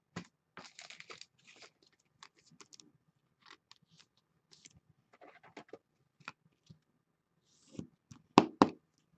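A trading card being slid into a clear plastic sleeve and toploader: faint scattered rustles and small plastic clicks, then a few sharper clicks near the end.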